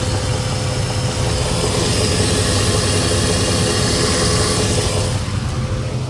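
Jeep Grand Cherokee WJ's 4.7-litre V8 running at idle, a steady low hum with a hiss over it that drops away about five seconds in.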